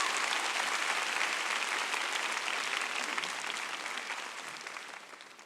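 Audience applauding, the clapping loud at first and slowly dying away.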